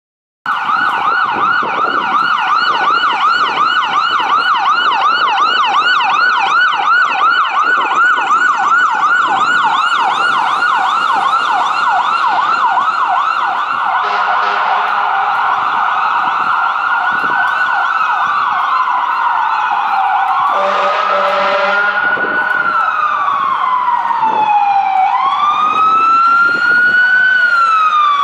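Fire apparatus electronic siren in a fast yelp for the first half, switching about halfway to a slow rising and falling wail. Two low air-horn blasts sound around the middle, and near the end a second wail overlaps as another unit joins.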